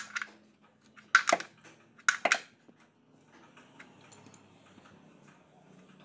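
Two short metallic clattering clicks about a second apart as the steel drain plug is handled and refitted in the Maruti Alto's oil sump, followed by a faint low background hum.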